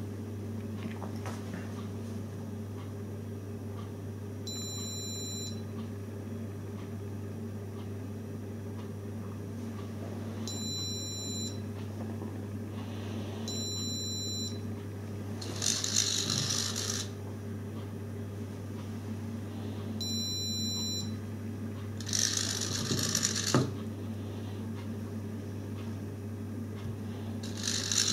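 Steady low electrical hum, broken by four short electronic beeps and two brief hissing bursts with a click. Near the end a louder mechanical noise starts as the motorised lid of the 3D-printed ashtray begins to flip up.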